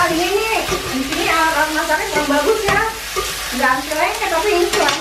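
Pesto tortelloni being stirred in a hot steel pot, sizzling, with a few clicks of the utensil against the pot. Over it runs a pitched, gliding melody that is louder than the cooking.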